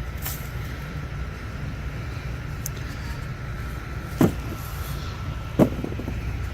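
Two sharp knocks about a second and a half apart over a steady low rumble.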